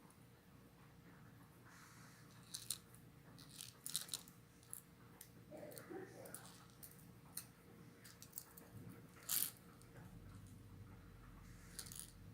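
Faint, scattered clicks and crackles of small hard objects being handled, with one sharper click near the end.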